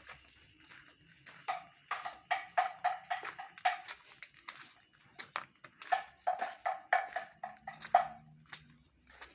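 Two runs of rhythmic knocking, about three strikes a second, each knock with a short pitched ring; the second run ends with a loud strike.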